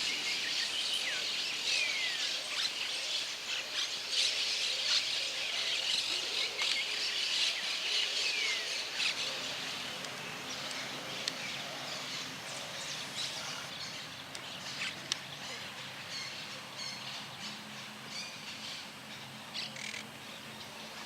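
Birds chirping and calling over a dense, high-pitched background chorus, with a few short falling whistles; the calling thins out about halfway through.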